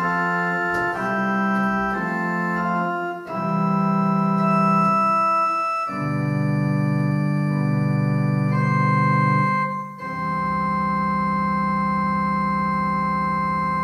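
Electronic keyboard played with an organ sound: slow sustained chords that change every second or few, then a long held final chord from about ten seconds in, the close of a hymn accompaniment.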